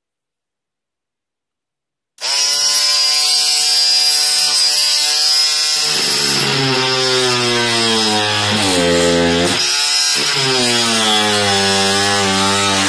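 Silence, then about two seconds in the Vityaz VMR-12 cordless oscillating multi-tool switches on and buzzes steadily. From about six seconds its segment saw blade cuts into painted wood, and the buzz dips in pitch a few times as the tool bogs under load.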